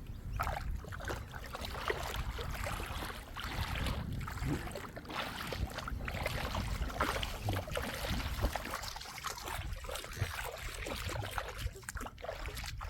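Lake water splashing and sloshing in an irregular, crackly wash, with a low rumble of wind on the microphone.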